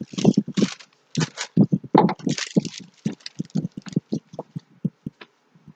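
A rolled diamond painting canvas being handled and unrolled: paper and plastic rustling and crinkling in quick, irregular bursts, with light knocks of the roll.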